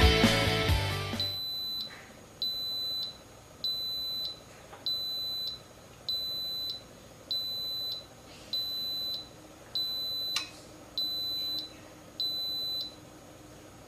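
Background music fading out, then an Instant Pot's electronic beeper sounding nine steady high-pitched beeps, each about half a second long and a little over a second apart.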